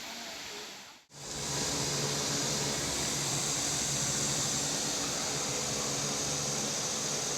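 An electric fan or blower motor running steadily, a low hum under a strong hiss, starting abruptly about a second in.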